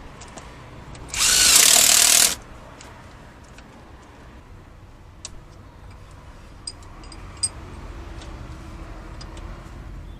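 A power tool runs in one loud burst of about a second, a little after the start. Scattered light clicks and taps follow.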